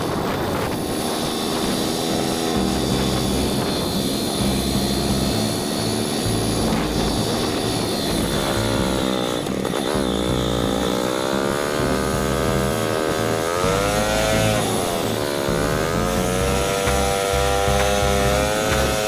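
Yamaha SR single-cylinder motorcycle engine running on the move, with a low rumble throughout. About halfway in the engine note comes up clearly and its pitch rises, falls and rises again as the throttle is worked.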